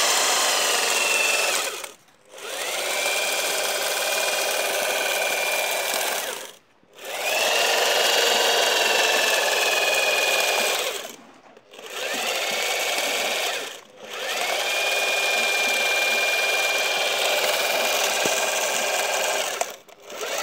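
Mortar pointing gun running in stretches of a few seconds with short pauses, about six times: a steady whirring hiss with a thin whine that rises as each run starts, while it presses grout into the joints of a slate stone wall.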